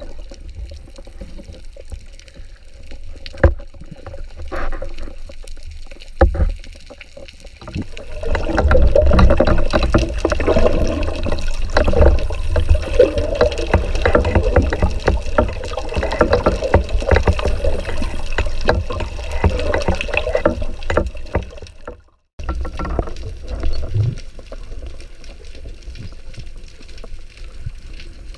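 Water sloshing and gurgling, much louder and busier from about eight seconds in, then breaking off suddenly a little past twenty-two seconds before resuming more quietly.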